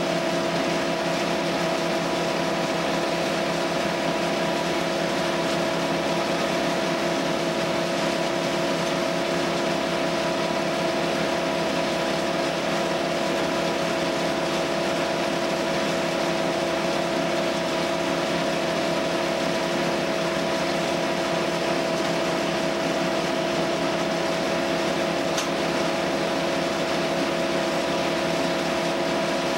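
Wood chipper's engine running steadily at constant speed, a loud even drone with a fixed pitch and no change in load.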